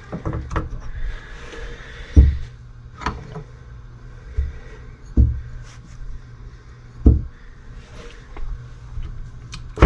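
Metal transmission parts and hand tools being handled: about five dull clunks, roughly two seconds apart, with a few lighter clicks, over a steady low hum.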